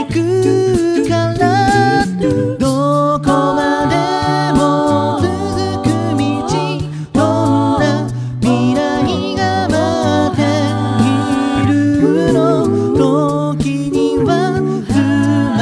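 A cappella group singing a slow pop song in close harmony over a sung bass line, with vocal percussion keeping the beat.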